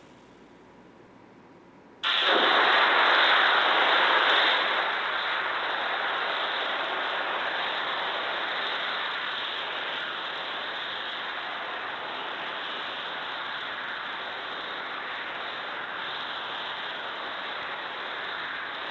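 Steady rushing hiss of the Starship Super Heavy booster venting propellant vapor after its static fire. It starts abruptly about two seconds in, is loudest for the first few seconds, then settles to an even rush.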